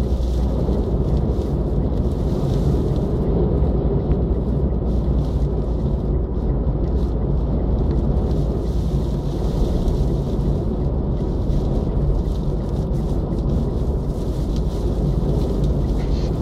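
Steady low rumble of road and wind noise heard inside a car driving along a highway in storm winds.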